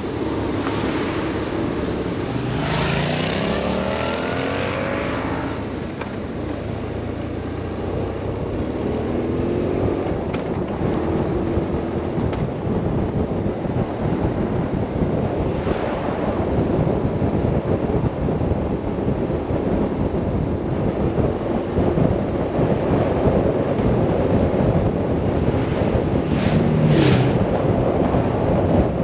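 Heavy wind rush on the camera's microphone while riding a BMW R 1150 RS, with the bike's flat-twin boxer engine running underneath. The engine pitch glides briefly a few seconds in and again around ten seconds in.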